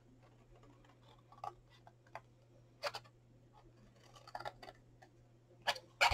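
Small scissors snipping short cuts into cardstock: a few sparse, quiet snips, the loudest near the end.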